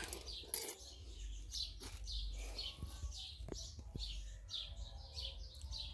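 A bird chirping over and over, about two or three short high chirps a second, with a few faint knocks from handling.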